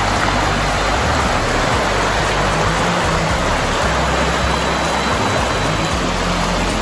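Shallow river running fast over rocks and stones, a steady rush of water.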